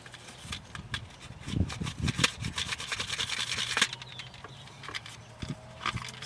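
Close handling noise: hands rubbing and scraping on hard objects, with many scattered clicks and a dense scratchy stretch in the middle, as a new camcorder and its parts are opened and worked.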